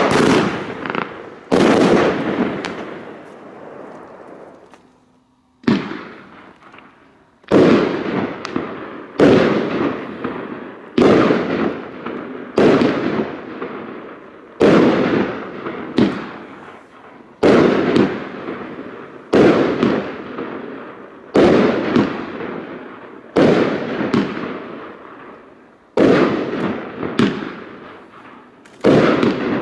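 A 25-shot, 30 mm consumer firework battery (Argento 'Valentin') firing shot after shot, roughly one every one and a half to two seconds, with a longer pause a few seconds in. Each shot is a sharp bang followed by a sound that fades over a second or so.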